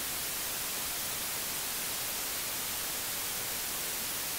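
Steady hiss of TV static, an even white-noise rush that does not change.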